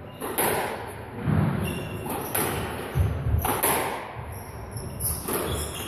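A squash rally: the ball smacks off rackets and the court walls about every second, with echo, among dull thuds and a few short squeaks from players' shoes on the wooden floor.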